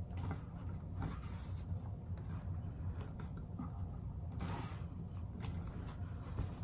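Faint rustling and a few soft taps of hands handling and pressing heavy paper onto a wood panel, over a steady low hum.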